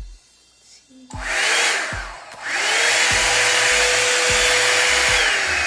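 EZ Detangler blow dryer switching on about a second in, dipping briefly, then running steadily with a high whine over the rush of air. Near the end the whine drops in pitch as the dryer moves to another heat setting.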